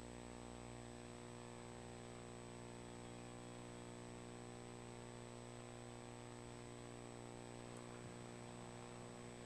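Faint, steady electrical mains hum and buzz in the sound system, with no voice coming through: the pastor's wireless microphone pack has shut itself off.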